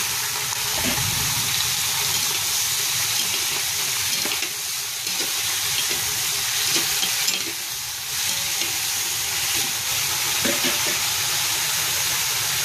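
Steady sizzling hiss of cubed pork frying in oil with garlic and onion in a pot, with a few light knocks of stirring.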